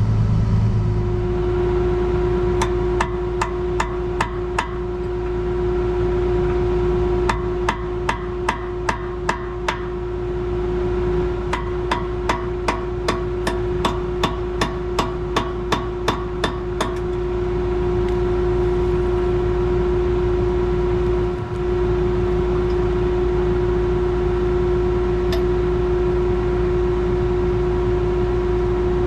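Case IH 7120 tractor's diesel engine running steadily. Three runs of sharp, evenly spaced knocks, about two to three a second, come over it during the first half and then stop.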